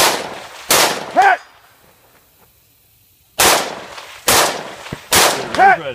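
Five semi-automatic rifle shots from a scoped AR-style 3-gun rifle: two about three quarters of a second apart, a pause of about two and a half seconds, then three about a second apart. A short pitched ring follows the second and last shots about half a second later, from a distant steel target being hit.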